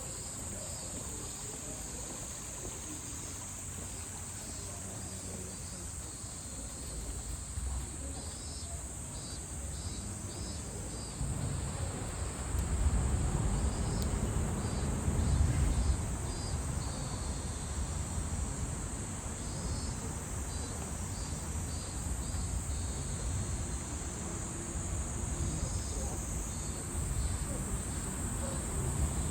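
A steady, high-pitched drone from a chorus of insects, with separate pulsing insect calls coming and going over it. A low rumble swells in about a third of the way through and stays under the insects.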